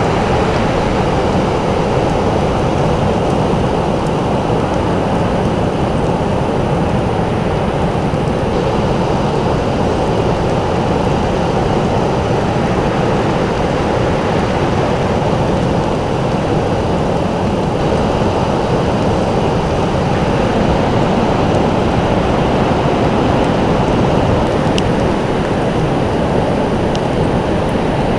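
Ocean surf breaking on a sandy beach: a loud, steady rush of noise, heaviest in the low end, with little rise and fall.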